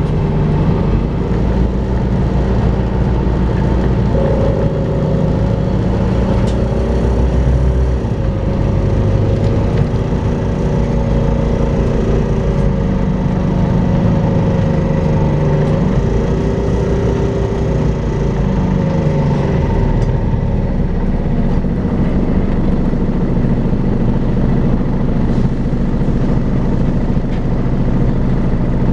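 Volvo B5LH diesel-electric hybrid double-decker bus running, with the vacuum-cleaner-like whine that bus enthusiasts call 'hoovering'. The engine note rises and falls several times in the first two-thirds, then holds steadier.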